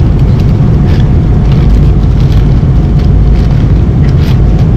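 Steady low roar of an airliner cabin in flight, with light crinkling of aluminium foil being peeled back from a hot meal dish.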